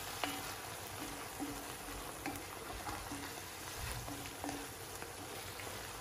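Ground beef mince with diced carrot and onion sizzling in an enamel-lined casserole pot while being stirred with a wooden spoon. Soft taps and scrapes of the spoon against the pot recur every second or so over the steady sizzle.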